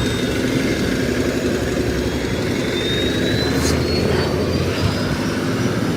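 Motorcycle engine running while riding, under a steady rush of wind on the microphone. A thin high whine rises in pitch from about two seconds in to near the end.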